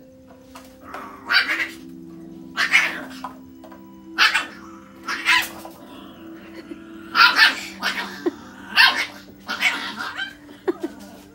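Puppy barking in play at a rooster: about eight short, sharp barks spaced roughly a second apart.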